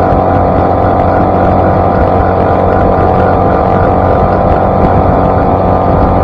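Outboard motor of a Shadow Cast 16 skiff running steadily at speed with the boat on plane, its even engine note holding without change, over the rush of water and spray off the hull.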